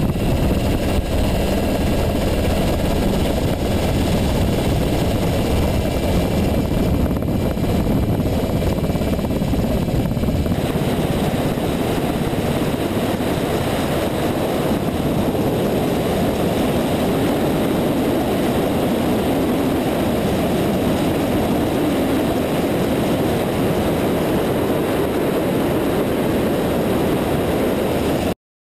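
UH-60 Black Hawk helicopter in flight, heard from inside the cabin by the open door: a steady noise of rotor and twin turboshaft engines, shifting slightly in tone about ten seconds in.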